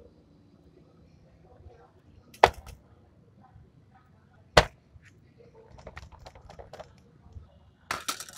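Plastic model-kit parts and a sprue runner being handled and set down on a desk: two sharp plastic clacks about two seconds apart, then a run of lighter clicks and taps.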